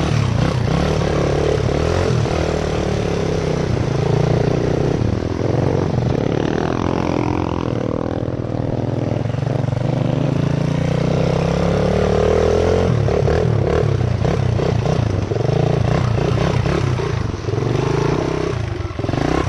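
Honda XR100 trail bike engine running, its revs rising and falling as it is ridden.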